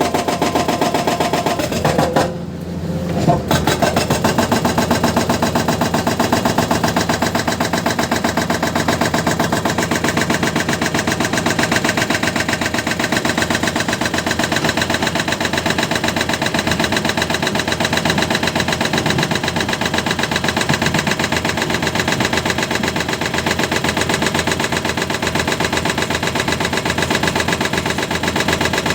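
Hyundai excavator's diesel engine running steadily under work, dipping briefly about two seconds in.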